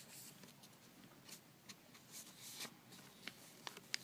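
Faint rustling and creasing of origami paper being folded by hand, with a few soft ticks and scrapes, one sharper near the end.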